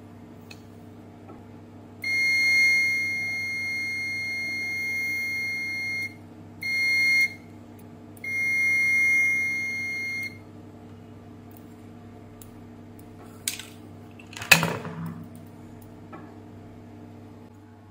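Continuity beeper of a UNI-T clamp meter sounding a steady high beep three times (a long tone, a short burst, then another longer tone), each time the steam iron thermostat's contacts close and make good connection. A sharp knock comes about fourteen and a half seconds in, louder than the beeps.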